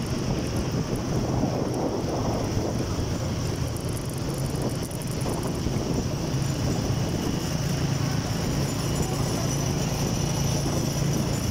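Motorcycle engine running steadily while riding, with wind rushing over the microphone. The engine hum stands out more clearly in the second half.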